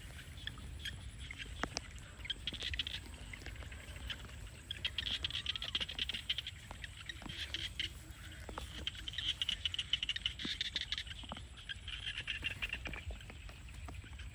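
Frogs calling in rapid, high, pulsing trills that come in several bouts of a second or two each, over a steady low rumble. Scattered small clicks and rustles run through it.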